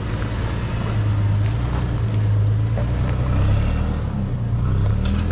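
Toyota FJ Cruiser's 4.0-litre V6 engine running at low revs under load as the four-wheel drive crawls up a steep, rutted dirt climb. It is a steady low drone, with a few light clicks about a second and a half in.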